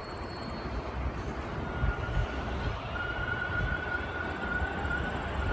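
Toronto subway train passing some distance off: a steady rumble of the cars on the rails, with a thin, steady high tone that starts about a second and a half in and fades out near the end.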